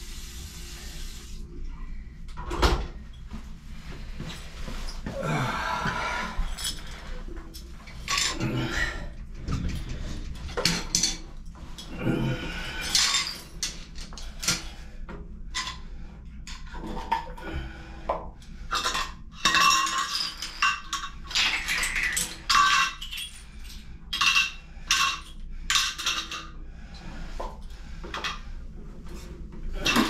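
Metal hand tools and parts clinking, knocking and rattling as they are gathered up and put away, an irregular run of short clinks and knocks.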